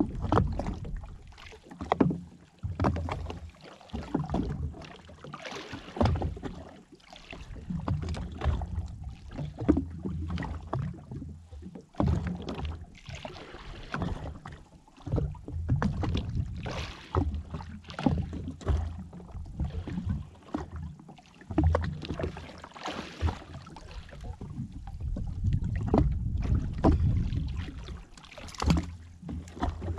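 Sea water slapping and sloshing against a drifting jet ski's hull in irregular surges.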